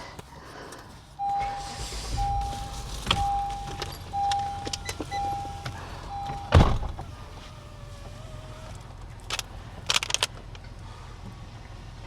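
Car warning chime beeping six times, about once a second, with a single steady tone, then stopping at a loud thump. Scattered clicks and rustling follow.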